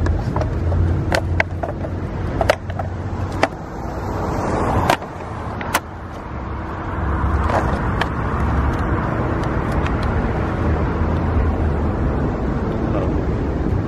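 Street traffic: a low engine rumble, with a car passing in the middle, and a few sharp clicks and snaps in the first half from plastic toy packaging being torn open.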